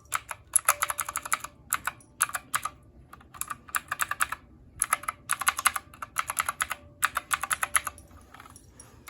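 Fast typing on a Surunta mechanical keyboard with blue switches, each keystroke an audible click, in quick bursts separated by short pauses.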